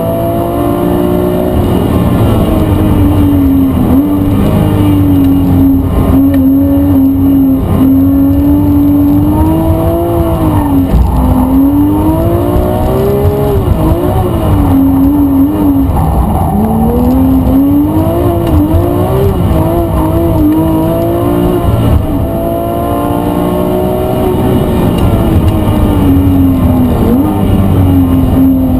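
GT3 sports car's engine at high revs while drifting, its pitch swinging up and down again and again through the middle as the throttle is worked, steadier at the start and near the end.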